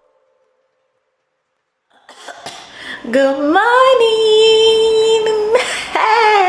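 Near silence for about two seconds, then a woman's voice: a long drawn-out vocal sound held on one pitch for about two seconds, followed by a shorter falling one. The voice is just after waking.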